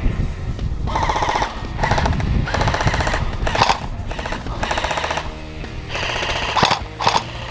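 Airsoft guns firing rapid-fire bursts, several in a row.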